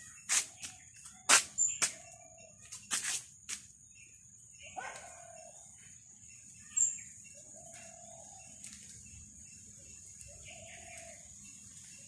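Footsteps crunching and twigs cracking on dry leaf litter for the first few seconds, then stopping. Under them an insect drone keeps up a steady high whine, and a bird repeats a short low call every second or two.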